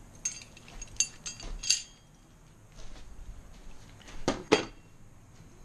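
Metal parts of a motorized-bike rear sprocket kit clinking as they are handled: several light, ringing chinks in the first two seconds, then two heavier knocks about four and a half seconds in.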